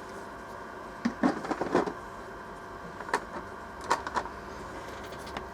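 Small hard objects clicking and clattering as tools are put away on a workbench, in two short bunches of knocks about two seconds apart.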